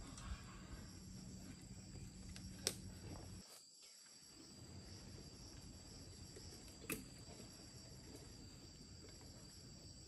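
Faint, steady, high-pitched chirring of insects, broken by two sharp clicks a few seconds apart.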